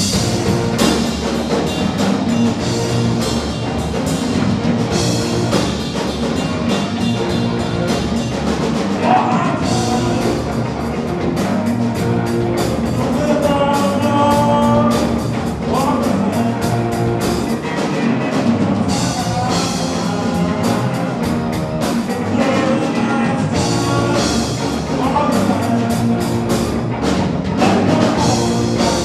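Live rock band playing: a drum kit keeping the beat under electric and acoustic guitars and keyboard.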